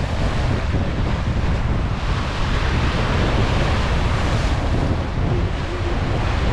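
Sea waves washing and breaking against the foot of a rocky cliff, with wind buffeting the microphone in a constant low rumble.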